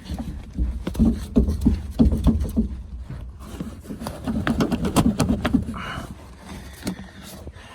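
Irregular knocks, clicks and clunks of metal parts on an old excavator being handled and worked, over a low rumble, with a short squeak about six seconds in.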